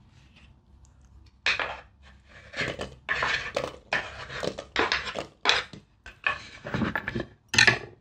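Close-up handling of dishes and cutlery while preparing fruit salad: a run of short, irregular clinks and scrapes, about seven of them, starting about a second and a half in.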